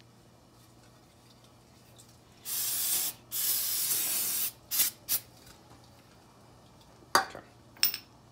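Aerosol can of non-chlorinated brake parts cleaner spraying onto a brake rotor and hub: two hisses of about a second each, then two short puffs. Two sharp clinks near the end.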